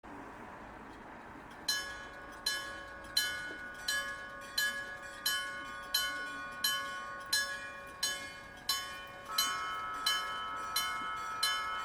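Electric gong-type level-crossing warning bell, a 1963 Kyosan unit, starting to ring a little under two seconds in and warning of an approaching train. It strikes about three times every two seconds, and each stroke rings on with a metallic decay. About nine seconds in, a steadier ringing tone joins the strokes.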